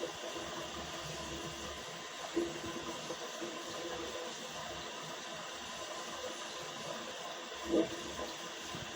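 A toilet gurgling over a steady hiss: two short gurgles, one about two and a half seconds in and a louder one near the end.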